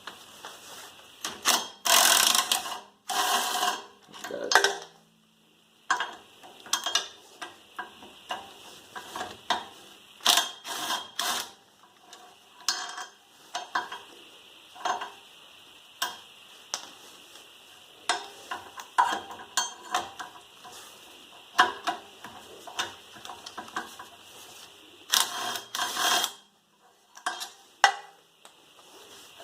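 Hand ratchet and socket working the rear wheel hub's mounting bolts loose: irregular metallic clicks and clacks, with louder rattling bursts about two seconds in and again near the end.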